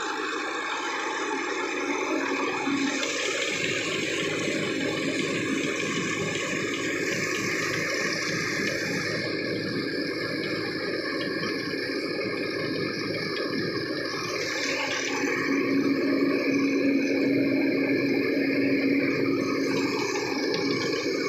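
Tractor-driven mini rice mill running, a steady rushing mechanical noise that grows a little louder about two-thirds of the way through.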